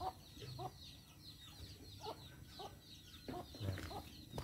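Chickens clucking, with short high chirps repeating throughout.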